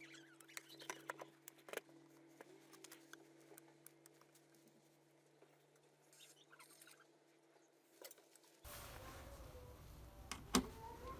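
Faint scattered clicks and taps of small parts being handled, over a low steady hum; about three quarters of the way through the hum stops and a louder hiss sets in, with a couple of sharper clicks.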